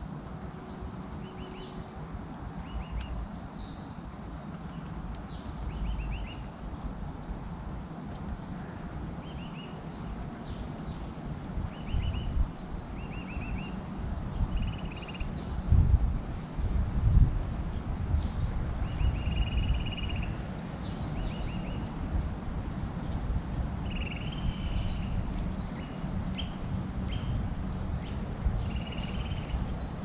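Small birds chirping and calling in short, frequent notes over a steady low outdoor rumble, with two louder low rumbles a little past the middle.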